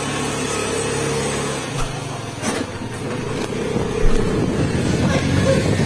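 Motor scooter engine running steadily while the scooter is ridden, a continuous low hum with road and air noise.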